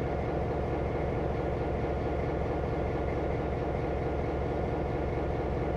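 Diesel locomotive engine idling steadily with an even, low throb.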